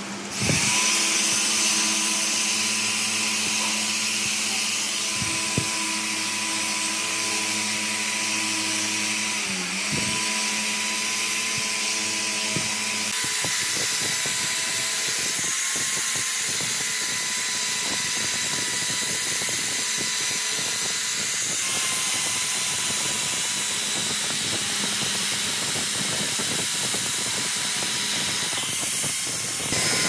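A handheld electric power tool starts just after the beginning and runs steadily with a high whine. Its pitch sags briefly under load about ten seconds in.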